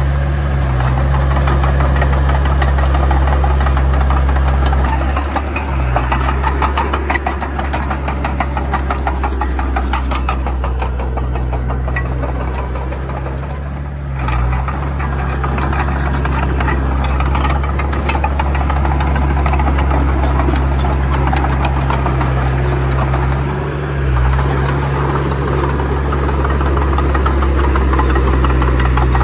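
Heavy diesel engine of a bulldozer running hard, with a rapid mechanical clatter over a steady low drone. The engine note dips briefly three times, about every nine seconds.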